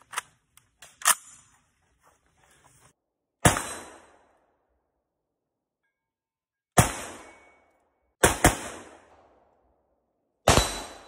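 A Ruger Mini-14 rifle in .223/5.56: a few sharp metallic clicks as it is readied, then four single shots, the first about three seconds in and the last two about a second and a half apart, each shot's report trailing off in an echo.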